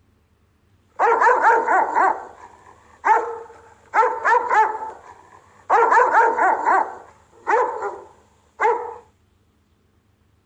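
Rottweiler giving guard barks: six bouts of barking, most of them quick runs of three or four barks, a few single barks near the end. It starts about a second in and stops about a second and a half before the end.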